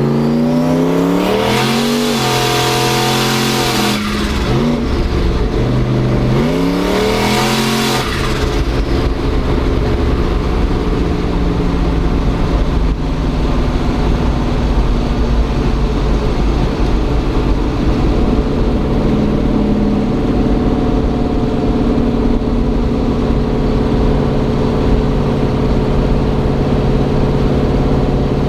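Turbocharged LM7 5.3-litre V8 in a Chevrolet S-10 pickup, heard from inside the cab, accelerating hard. The engine note climbs, drops at a gear change about four seconds in, then climbs again, with a loud rushing turbo hiss building near the top of each pull. After about eight seconds it settles to a steady cruise.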